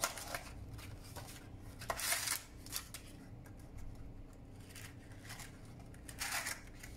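Parchment baking cups rustling as they are handled and pulled from a stack, in two brief bursts: one about two seconds in and one near the end.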